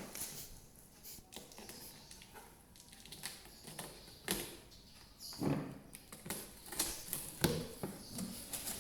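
Loudspeaker being unpacked by hand: scattered light rustling, scraping and knocks of the packaging and box, with a couple of louder bumps in the second half.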